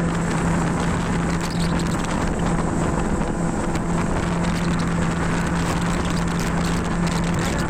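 Motorboat engine running at a steady speed, with water rushing past the hull and wind buffeting the microphone.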